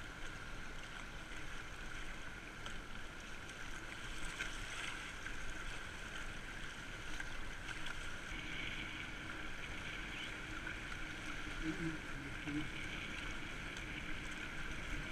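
Fast river water rushing and splashing around a whitewater kayak's hull as it runs through choppy current, a steady wash of noise.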